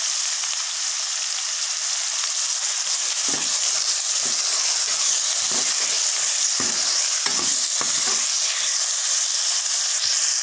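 Chopped onions sizzling in hot oil in a metal kadai. From about three seconds in, a metal ladle scrapes and stirs them in irregular strokes.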